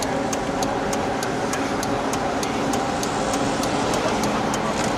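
Car interior noise: engine and tyre noise held steady while the car takes a curve. Over it runs a turn-signal indicator, ticking about three times a second, which stops near the end.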